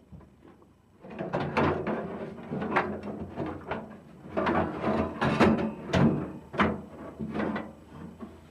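Parts and tools being shifted and set down: a dense, irregular run of knocks, clatter and scrapes, starting about a second in.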